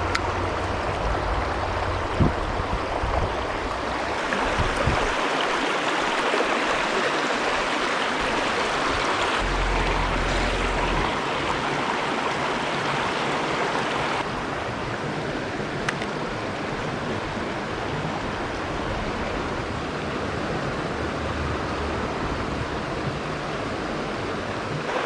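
Mountain stream water rushing steadily, a continuous even hiss with a few faint clicks.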